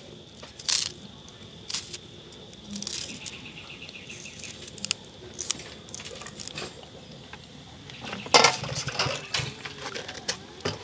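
Kitchen knife slicing green onion held in the hand, a string of short crisp cuts, then a louder clatter of a knife against a steel bowl about eight seconds in.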